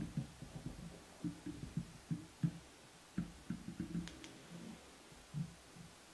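Handling noise as hands work tying thread on a fly in a vise: irregular soft low thumps and rustles, with a few faint clicks about four seconds in.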